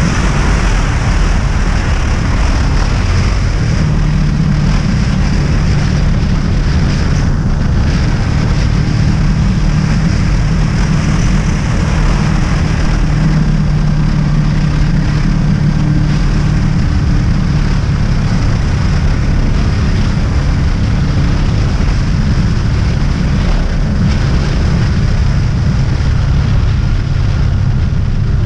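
Honda VFR800's V4 engine running at a steady cruising speed, with wind rushing over the microphone.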